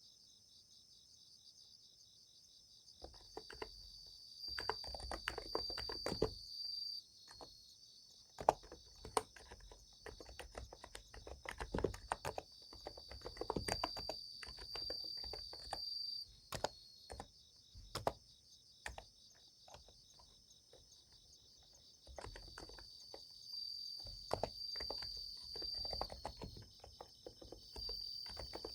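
Typing on a Niz Plum x108 electrostatic capacitive keyboard: runs of soft key clicks starting a few seconds in, stopping for a few seconds past the middle, then resuming. Under it, insects chirp steadily in a high, pulsing chorus.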